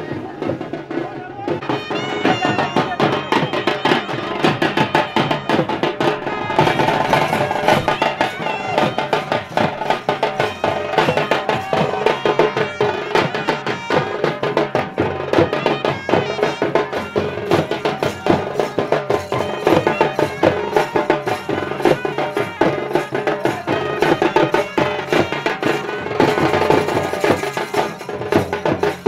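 Traditional Bengali folk drumming: dhol drums beaten in a fast, dense rhythm, with a wavering melody line over them from about two seconds in.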